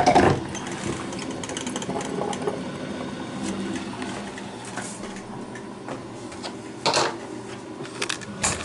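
Black & Decker thermal carafe drip coffee maker running as it brews: a steady hum with a fluttering noise. There is a knock at the start and a short louder burst about seven seconds in.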